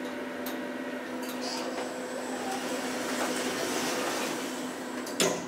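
OTIS hydraulic elevator with its car at a landing: a steady hum, with the sliding doors opening, a few light ticks, and a sharp clunk about five seconds in.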